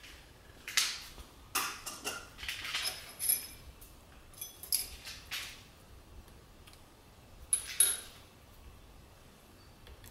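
Light metal clinks and taps in several short clusters, the loudest about a second in and near eight seconds, as a hex key is worked in a milling machine's offset boring head to set it for a slightly larger bore. The spindle is stopped and no motor is heard.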